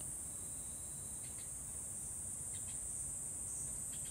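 A steady, high-pitched chorus of insects chirring in a garden in late summer, with a few faint short chirps over it.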